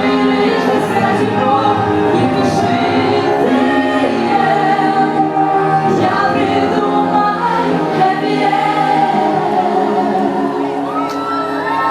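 Music with a choir singing sustained notes.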